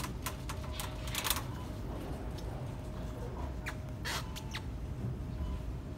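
Shop-floor ambience: a steady low hum and a faint steady tone, with scattered sharp clicks and a short squeak, a cluster in the first second or so and a few more about four seconds in.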